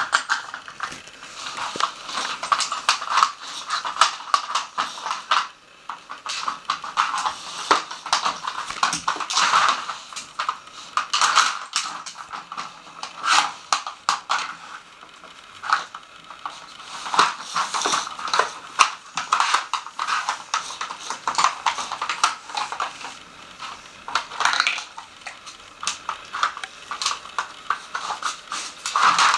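A dog sniffing hard at a plastic treat puzzle and nosing its plastic cups and lids about. There are many quick clicks, knocks and clatters of hard plastic throughout.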